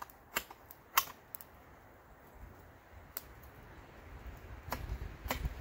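A handful of sharp, irregular cracks and snaps of wood, the loudest about a second in, with a low rumble building near the end.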